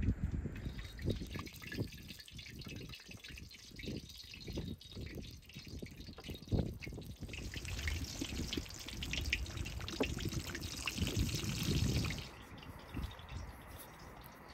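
Chebureks deep-frying in hot oil in a wide pan: a steady sizzle with sharp crackles and pops, louder in the second half, that drops away about twelve seconds in. Low knocks and bumps sound underneath.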